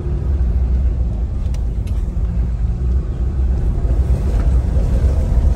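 Steady low rumble of road and engine noise inside the cab of a 2018 Ram 2500 with the 6.7L Cummins turbo-diesel, driving slowly over a bumpy road.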